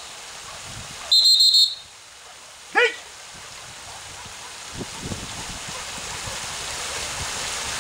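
A whistle sounds one short trilling blast about a second in, followed by a single short dog bark falling in pitch. Under it, water sprays down the wooden steps with a steady hiss that grows louder in the second half.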